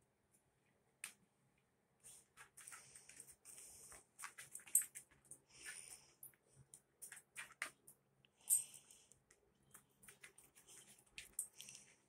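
Dog claws clicking and tapping on a bare concrete floor as dogs walk about, in irregular runs of sharp ticks, with a few brief rustles between them.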